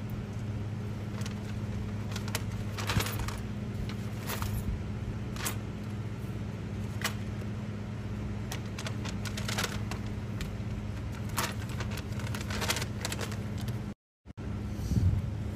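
Small plastic items such as lighters and packs clicking and rattling as gloved hands handle them and set them down on a scooter seat. Under them runs a steady low hum. The sound cuts out completely for a moment near the end.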